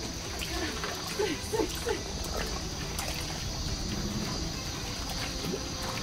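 Water splashing and dribbling at the lake surface as a school of bass swirls after a retrieved lure, in small irregular splashes.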